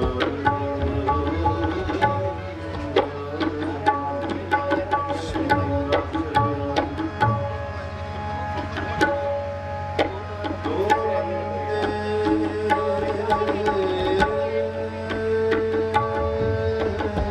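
Harmonium and tabla playing together: the harmonium's held reed notes run under a busy stream of sharp tabla strokes.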